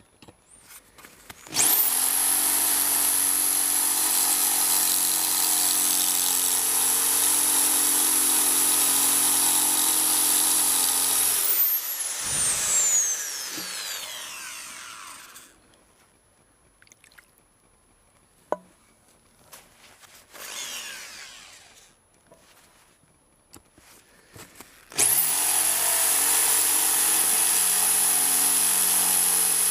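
Electric hammer drill in drill mode, boring out a stripped axle bolt in an inline skate frame. It starts up about two seconds in, runs steadily for about ten seconds, then winds down with a falling whine. After a quieter stretch with a few small clicks it starts again about twenty-five seconds in and keeps running.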